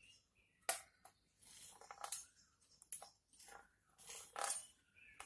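Fluted pastry-cutting wheel rolling through a thin sheet of dough on a steel board: faint, scattered scrapes and clicks, with one sharper click under a second in.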